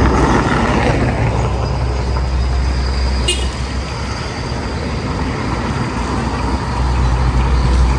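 Road traffic running past, a steady low rumble that eases in the middle and swells again near the end, over the sizzle of fish frying in oil in a large wok. About three seconds in there is a single metal clink of a spatula or strainer against the wok.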